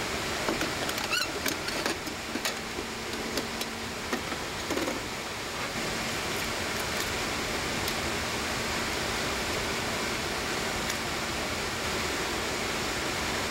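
Steady rushing background noise with scattered light clicks and knocks over the first few seconds, and one brief high chirp about a second in.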